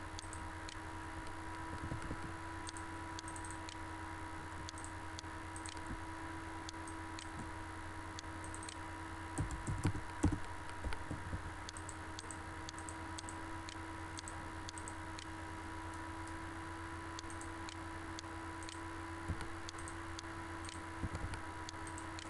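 Scattered faint clicks of a computer mouse and keyboard over a steady electrical hum, with a few soft thumps about ten seconds in.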